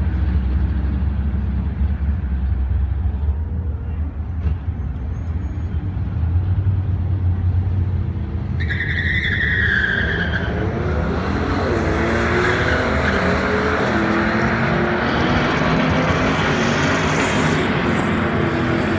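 A 2018 Mustang GT's 5.0 Coyote V8 and a 2018 Ford F-150 Raptor's twin-turbo V6 idling with a deep rumble at the drag strip start line. About halfway there is a short high squeal, then both launch and accelerate hard down the strip, engine pitch climbing and dropping back at each gear shift.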